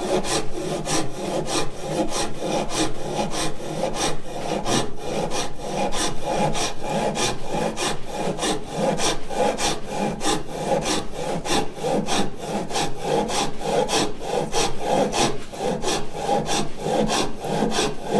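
Japanese hand saw cutting through timber at a diagonal, steady back-and-forth strokes at about two to three a second.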